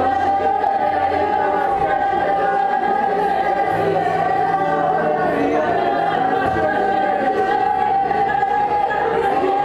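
A choir singing in long held notes, several voices together, over sustained low notes that shift every few seconds.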